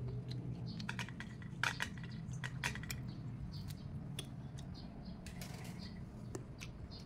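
Scattered small clicks and crackles of dry, papery cemplukan (ground cherry) husks being peeled open by hand, over a low steady hum.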